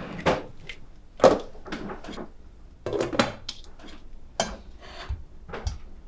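Kitchen dishes being handled: a string of irregular knocks, clatters and scrapes as bowls and plates are taken out of a wooden cabinet and set on the counter, the sharpest knock about a second in.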